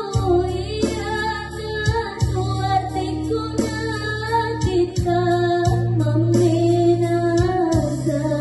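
A girl singing solo into a microphone with instrumental accompaniment underneath, holding one long note in the second half.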